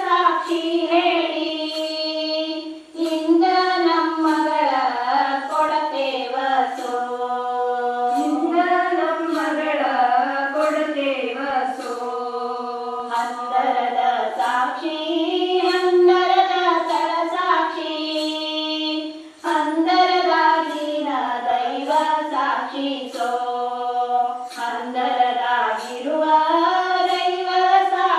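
A small group of women singing a Kannada folk wedding song (shobana pada) together in unison, with a light steady beat of ticks behind the voices. The voices drop out briefly twice between phrases.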